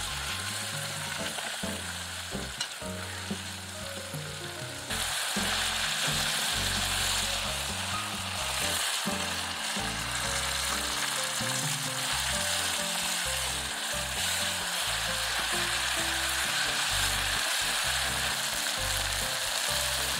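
Thinly sliced beef brisket sizzling in chili oil with sliced onions in a pot, stirred with chopsticks while its fat renders out. The sizzle jumps louder about five seconds in and then stays steady.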